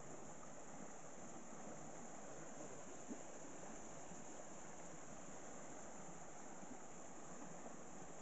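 Fast-flowing stream rushing steadily, its water high and swift after heavy rain.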